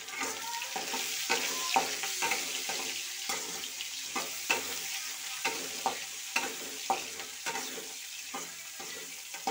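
Onions, peanuts and garlic sizzling in hot oil in a metal kadai, stirred with a plastic spatula that scrapes and knocks against the pan about twice a second.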